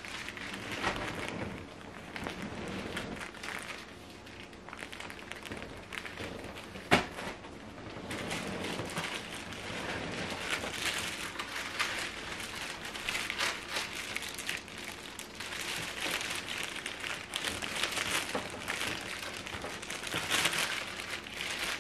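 Rustling and crinkling of cardboard and plastic shrink-wrap as items are handled and lifted out of a cardboard shipping box, with one sharp knock about seven seconds in.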